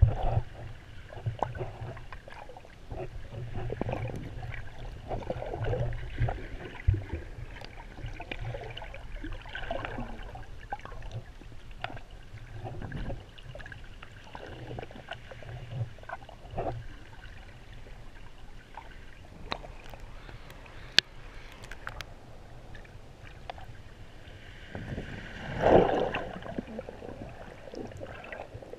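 Water moving around a camera held underwater while swimming: muffled sloshing and gurgling over a low rumble, with a few sharp clicks and a louder surge of swirling water near the end.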